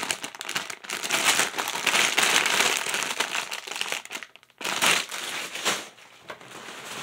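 Clear plastic bag of Lego pieces crinkling as it is handled and turned over in the hands, with a short pause after about four seconds. It dies down near the end.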